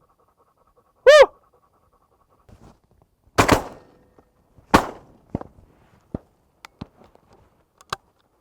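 Two shotgun shots about a second and a half apart at passing doves, followed by a series of small metallic clicks from handling the gun. A brief high whine comes about a second in, before the shots.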